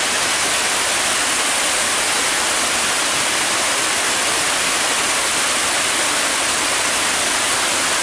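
Water cascading down a wide stepped stone waterfall wall, a steady rushing hiss of falling water.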